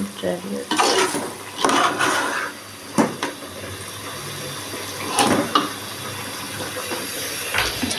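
Metal ladle stirring chicken curry in a steel pot: wet scraping through the thick gravy in the first couple of seconds, then a few sharp clinks of the ladle against the pot.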